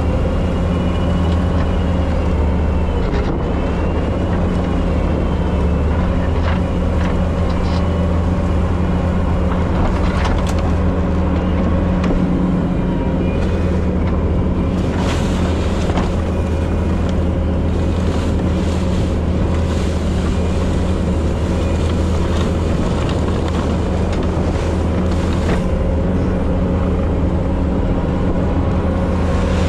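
Bobcat T770 tracked skid steer's diesel engine running steadily at working speed, with scattered clattering and rattling from the machine at work.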